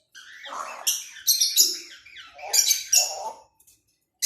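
A pet parrot calling in a string of short chirps and calls that stop about three and a half seconds in, followed by one sharp high call at the end.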